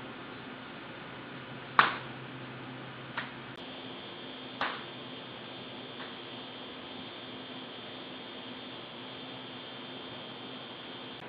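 Steady electrical hiss and hum of a security camera's audio track. A sharp knock with a short ringing tail comes about two seconds in, followed by three fainter knocks over the next four seconds. About three and a half seconds in, the low hum gives way to a thin, steady high whine.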